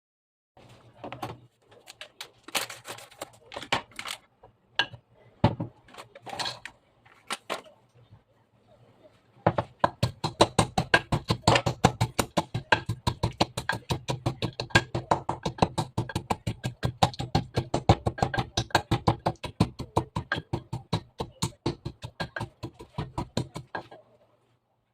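Mixed nuts being pounded with a hand knocking-and-pounding tool: rapid, even strikes about four to five a second, starting about ten seconds in. Before that, a few scattered taps and rustles.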